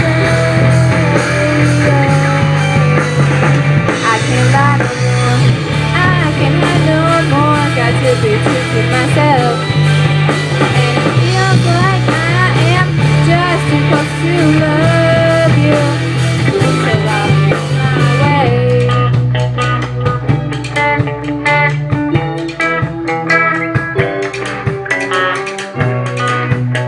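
Live amateur rock band playing: electric guitars, bass, drums and keyboard under a girl's lead vocal. About two-thirds of the way through, the singing drops out and the band plays on instrumentally with the guitars leading.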